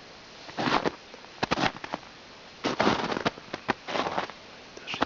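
Footsteps crunching through snow at a walking pace, one crackly step about every second.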